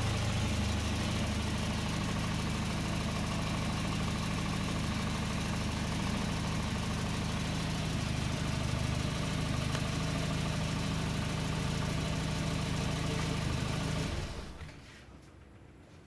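Volvo 940 Turbo's four-cylinder engine idling steadily on an added CDI ignition module triggered by the factory ignition; near the end it stops and the sound drops away to a quiet room.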